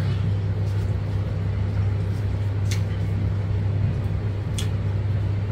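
A steady low machine hum, with two brief sharp clicks, one a little before the middle and one about two-thirds of the way in.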